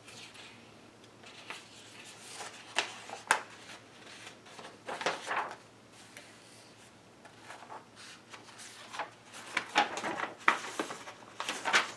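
Pages of a picture book being turned and the book handled: scattered paper rustles and light knocks, busiest near the end.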